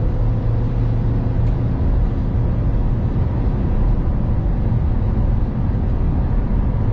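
Nissan X-Trail with a remapped ECU, heard from inside the cabin as it climbs in fourth gear at speed: a steady engine drone mixed with road noise.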